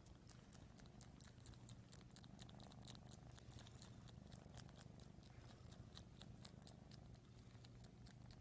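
A cat purring quietly, with a quick, irregular run of soft clicks over it.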